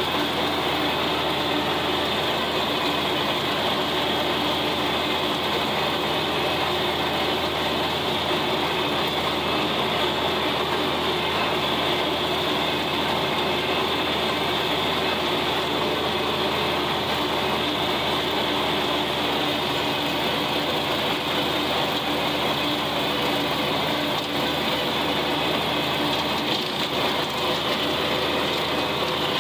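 John Deere 4020 tractor's six-cylinder engine running steadily under load while pulling a rotary cutter (brush hog), an even, unchanging mechanical drone.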